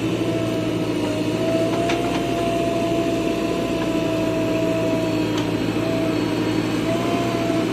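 Bulldozer's diesel engine running steadily under work, with a steady whine above it and a couple of faint clinks about two and five seconds in.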